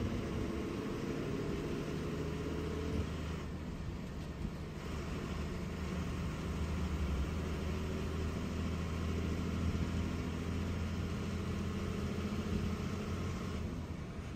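KSRTC Minnal express bus running at speed, heard from inside: a steady engine drone under road and tyre noise. The engine note changes about three seconds in, and the road hiss dips briefly just after.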